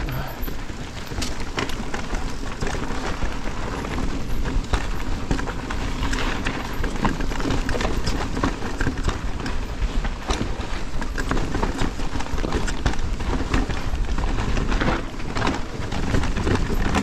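E-mountain bike riding down a rough, rocky trail: tyres rolling and crunching over stones with a steady run of clicks and rattles from the bike, and wind rumbling on the camera microphone.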